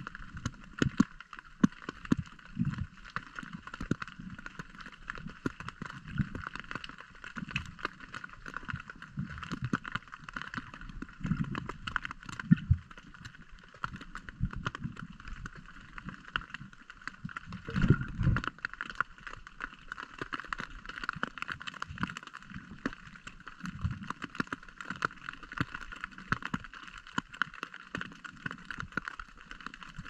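Muffled underwater noise picked up by a submerged camera: a steady hiss with water surging against it and many small clicks and knocks, plus a louder thump about 18 seconds in.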